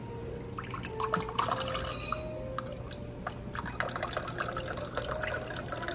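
Liquid pouring and dripping, with scattered light clinks.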